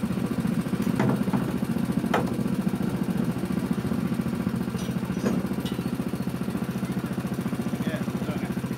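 Go-kart's small engine idling with a steady, rapid putter, with a few light knocks about one, two and five seconds in.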